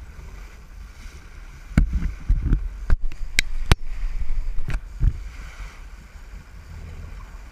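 Steady low rumble of a sportfishing boat under way on open water. Through the middle comes a cluster of about half a dozen sharp knocks and low thumps.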